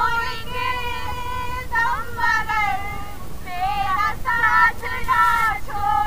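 Several people singing together in high, drawn-out voices, phrase after phrase with short breaks between, without instruments.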